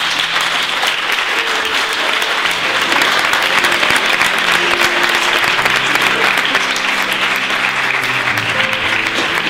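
A group of people applauding, steady clapping throughout, with soft music underneath.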